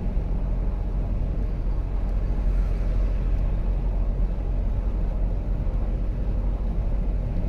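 Steady low road rumble of a car driving at speed, heard from inside the cabin.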